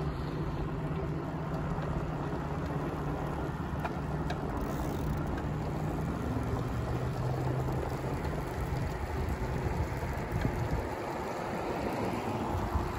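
Steady rushing noise of riding along an asphalt path: wind across the microphone mixed with the rolling of a child's bicycle tyres, with a low hum in the first half and a few faint ticks about four seconds in.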